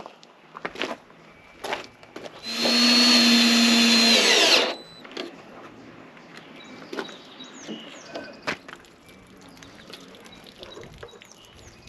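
Handheld power drill running for about two seconds at a steady pitch, then winding down. Light clicks and knocks of handling follow.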